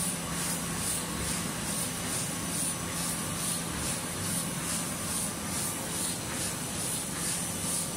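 Interfold dispenser napkin machine running at speed: a steady mechanical hum and hiss, with a quick, even pulse repeating in the hiss.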